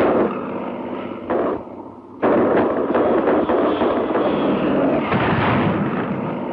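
Aircraft cannon and machine-gun fire with shell blasts, from a P-39 Airacobra's 37 mm cannon and guns. It is heavy, rapid firing that drops off briefly about two seconds in, then starts again suddenly and keeps going.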